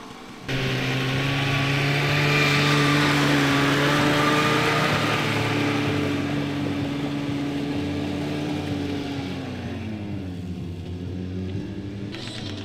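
Small tractor's engine working hard over a rough dirt course. It comes in suddenly just after the start and holds a steady pitch, then its note drops about three-quarters of the way through as it eases off and grows quieter.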